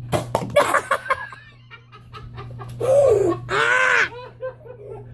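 A person's voice: two loud, high-pitched cries about three and four seconds in, after a run of sharp clicks and knocks.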